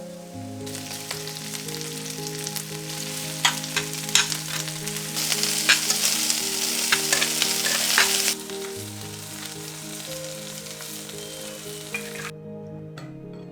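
Food sizzling in a frying pan, with a few sharp clicks of a utensil against the pan; the sizzle gets louder in the middle and cuts off abruptly near the end. Soft background music plays throughout.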